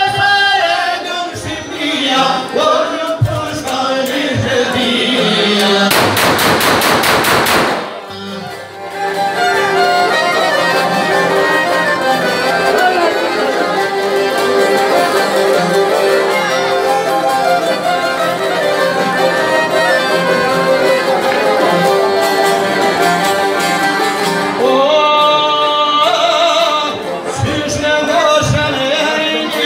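Live Albanian folk music: a man sings over a violin and a long-necked plucked lute, with the violin carrying long instrumental stretches in the middle. About six seconds in, a fast rattling burst of under two seconds cuts across the music.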